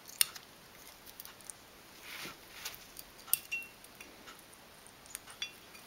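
Light scraping and scattered small clicks of a metal pick working in a rusty brake caliper bore, digging out rust and the old square piston seal; a short scrape comes about two seconds in.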